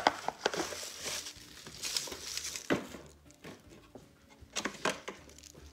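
Cardboard and plastic packaging rustling, with a few scattered light knocks, as a tumbler is handled and taken out of its box.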